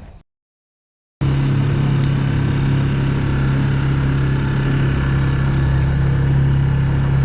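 Boat engine running at a steady low speed, an even low drone that starts abruptly about a second in.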